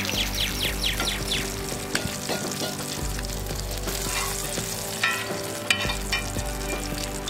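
Fish pieces shallow-frying in hot oil, a steady sizzle with crackling spatters and a few sharp pops.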